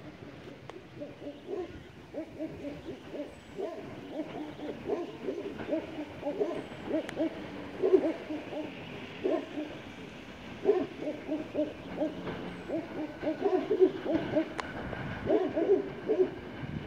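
Feral pigeons cooing: many short, low coos, several birds overlapping, over a faint steady hiss.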